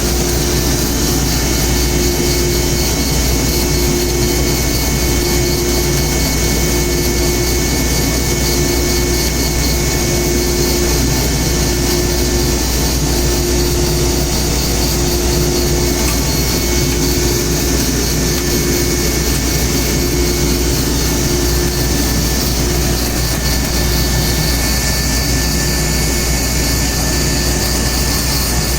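Old woodworking machine running steadily while chopstick blanks are trimmed to equal length, a constant loud mechanical noise with a low hum and a mid-pitched tone that comes and goes about once a second.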